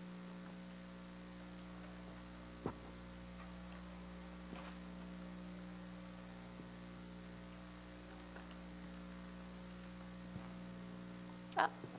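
Steady electrical mains hum, with a few faint isolated clicks and a brief louder sound near the end.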